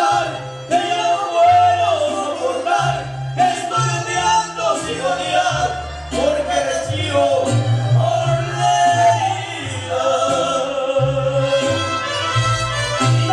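Ranchera song playing between sung verses, with a melody line carried over a stepping bass line.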